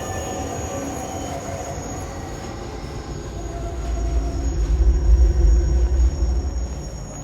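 Subway train running on the rails: a heavy low rumble with a thin, high wheel squeal held over it. The rumble swells about four seconds in and fades near the end.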